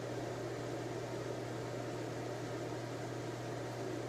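A ventilation fan running with a steady hum and a constant low tone underneath.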